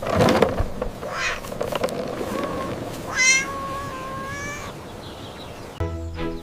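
A cat meowing: a couple of short mews, then one longer meow about three seconds in. Background music comes in near the end.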